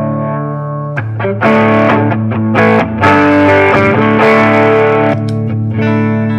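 Squier Jazzmaster electric guitar played through a board of effects pedals into a Fender Tonemaster Deluxe Reverb amp. A chord rings out, then a run of picked notes and strummed chords starts about a second in before settling back into a ringing chord near the end.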